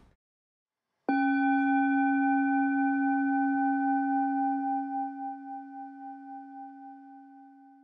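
A single struck, bell-like tone rings out about a second in, then slowly dies away, wavering as it fades.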